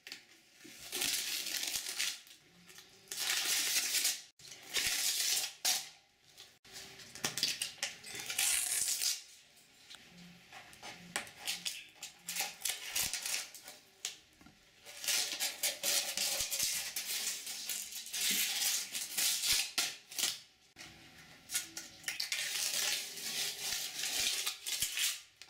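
Blue painter's tape being peeled off a hardwood floor along a freshly painted baseboard, a noisy ripping crackle in several long pulls of a few seconds each with short pauses between.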